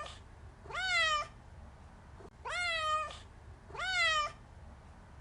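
Domestic cat meowing: the end of one meow, then three more about a second and a half apart, each rising in pitch and then levelling off.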